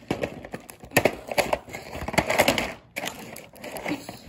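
Toy packaging being pulled open by hand: irregular crinkling, crackling and snapping, loudest a little past the middle.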